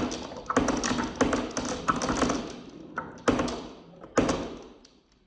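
Marbles clattering down a wooden marble run, a dense rattle of quick clicks, then two sharp clacks about three and four seconds in, after which the rattling dies away.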